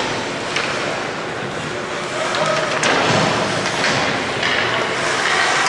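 Ice hockey game sounds from the stands: skates scraping the ice and several sharp clacks of sticks and puck over a steady arena din, with spectators' voices calling out.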